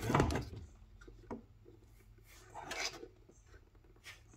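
A few short handling sounds: rubbing and light clicks of a roller chain and sprocket being worked by hand on the electric motor of a small locomotive, with quiet gaps between them.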